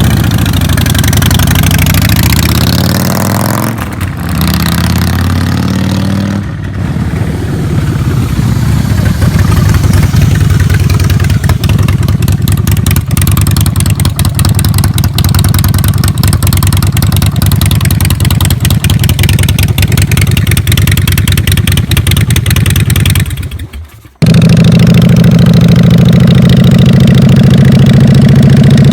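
Harley-Davidson Breakout's V-twin exhaust, loud throughout. It revs up and down in the first few seconds, then runs steadily. Near the end the sound cuts out briefly, and a deep, steady idle follows.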